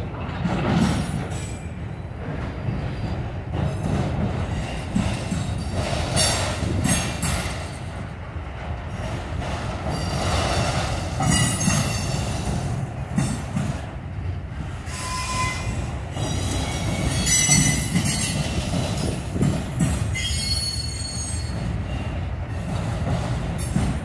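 Freight train of autorack cars rolling past: a steady rumble of steel wheels on rail, with high-pitched wheel squeal coming and going several times.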